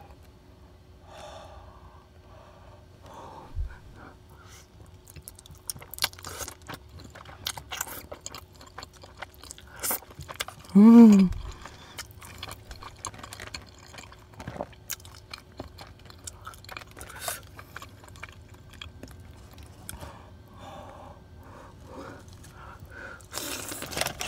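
Close-up mouth sounds of someone eating chewy Korean rice cakes in cheese sauce: wet chewing with frequent lip smacks and clicks. About eleven seconds in comes a short hummed "mmm", the loudest sound.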